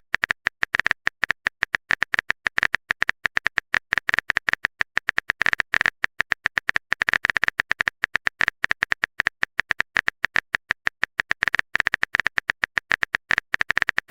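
Phone keyboard typing sound effect: a long run of quick, sharp taps, about eight to ten a second and slightly uneven, as a message is typed out in a chat.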